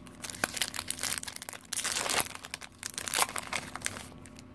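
Foil wrapper of a Pokémon XY Evolutions booster pack being torn open and crinkled by hand: an irregular run of crackles and rips, busiest in the middle.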